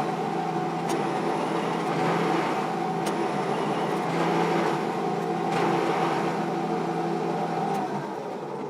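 Lathe running with a steady hum and whine over a hiss, with faint clicks about every two seconds; near the end the tones stop and the sound fades as it winds down.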